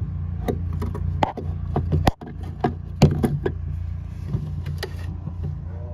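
Irregular clicks, knocks and scrapes of handling around a metal lockbox hidden between floorboards, over a steady low hum.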